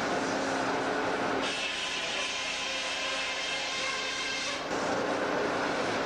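Portable sawmill running: a steady engine sound, with a higher-pitched whine coming in about a second and a half in and dropping away near five seconds.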